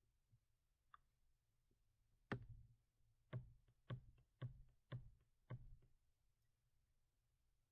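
Near silence broken by about six faint, sharp clicks, roughly two a second, starting about two seconds in.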